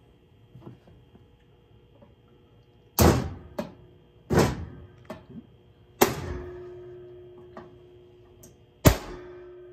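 A screwdriver driven against a knockout in an electric heater's sheet-metal wiring box: four sharp metal strikes a second or more apart, the last two leaving the steel housing ringing. The knockout is not yet fully out.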